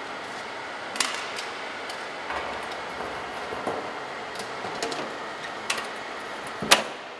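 Lid being fitted onto a metal open-head drum and its lever-lock clamp ring closed: a series of sharp metal clicks and knocks, the loudest one near the end, over a steady background hiss.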